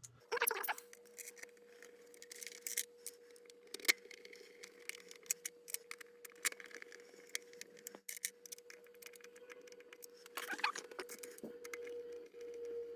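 Screws being fitted and driven with a small screwdriver into the plastic back case of a Sony ICF-2001 radio: many quick clicks and light scrapes, with a louder scrape near the start and another about eleven seconds in. A faint steady tone sounds underneath.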